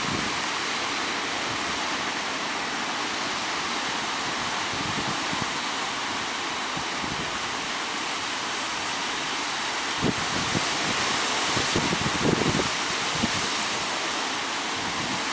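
Steady rushing noise of ocean surf breaking on the beach, with wind buffeting the microphone in gusts from about two-thirds of the way through.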